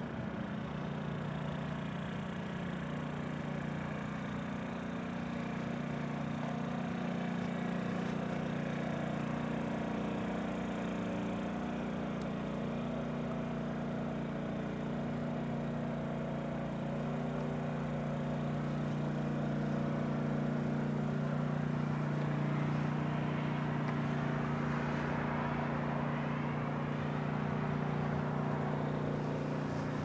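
An engine running steadily at idle, a low even hum that holds at one pitch.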